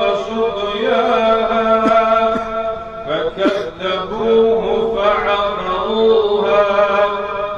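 A man's voice in slow, melodic Quranic-style recitation (tilawat), drawing out long held notes with ornamented turns, with a short break about three seconds in.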